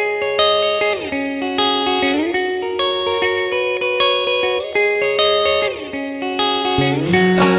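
Background music: a guitar picks a melody with notes that slide up and down in pitch. Lower notes and a fuller accompaniment come in near the end.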